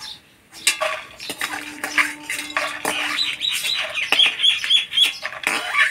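A bird chirping repeatedly in quick succession, with clinks and scrapes of a spatula against the kadai as fried lentil dumplings are lifted out of the oil.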